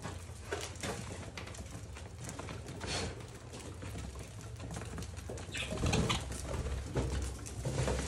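Caged budgerigars feeding: scattered clicks of pecking at seed, mixed with soft bird calls, over a steady low hum.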